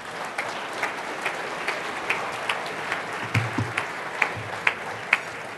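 Audience applauding: a dense patter of many hands clapping, with one nearby clapper standing out at a little over two claps a second.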